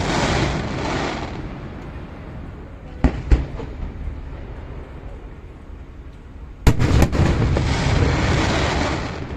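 Fireworks shells bursting. Two bangs come about three seconds in, then a quick cluster of bangs near the end trails off into a few seconds of rumbling crackle.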